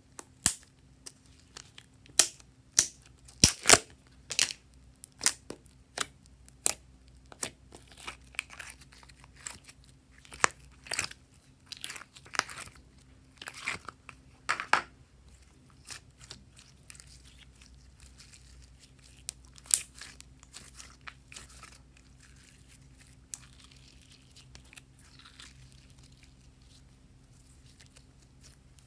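Sharp clicks and crackles of a thin plastic slime tub being handled and its lid pried open, densest over the first fifteen seconds. Then softer, sparser sticky pops as glossy slime is stretched and folded by hand.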